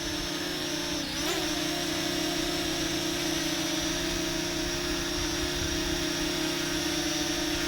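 Parrot Anafi quadcopter drone's motors and propellers whining steadily in flight, the pitch dipping briefly and coming back up about a second in.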